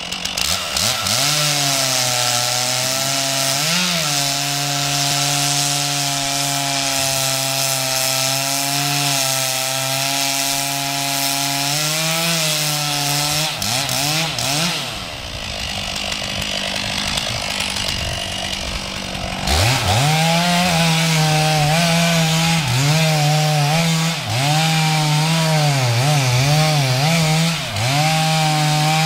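Stihl MS 461 two-stroke chainsaw cutting into a felled log under full throttle, its engine note sagging and recovering as the chain bites. Around the middle it eases off for a few seconds, then runs up again with repeated short dips in pitch as it cuts.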